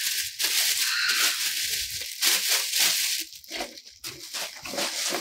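Clear plastic wrapping crinkling and rustling as fabric is pulled out of it and handled, in irregular bursts that are loudest in the first three seconds and thinner after.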